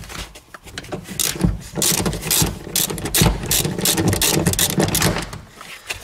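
Ratchet wrench clicking in quick, irregular runs as a 16 mm seat-rail bolt is loosened.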